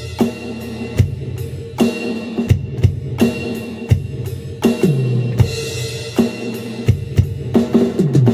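Alesis Nitro Mesh electronic drum kit played through a Marshall acoustic amplifier: a steady beat of kick, snare and cymbal hits, with a tom fill falling in pitch near the end.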